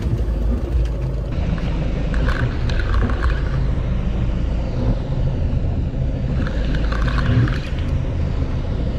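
Heavy spinning reel being cranked to wind in a hard-fighting fish, its winding heard in two spells over a steady low rumble.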